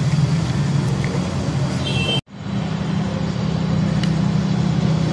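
A steady low mechanical hum, strongest in its low register. It cuts out for an instant a little over two seconds in, then carries on unchanged.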